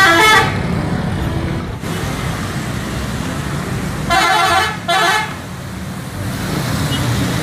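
Coach bus horn sounding over the running engine and road traffic: one blast right at the start, then two more about four seconds in, the second shorter.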